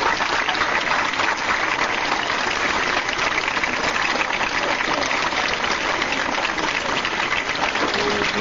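Theatre audience applauding steadily, a dense wash of many hands clapping. A single held musical note comes in near the end.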